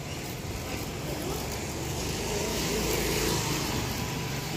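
A motor vehicle going by, its engine and tyre noise swelling through the middle and easing off near the end.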